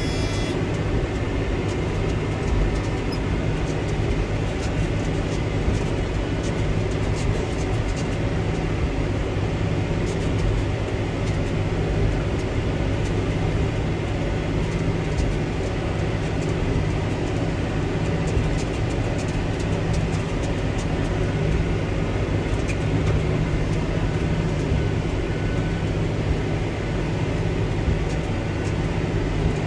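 Tractor and baler working a field of straw: a steady, continuous engine drone with a faint repeated mechanical clicking over it.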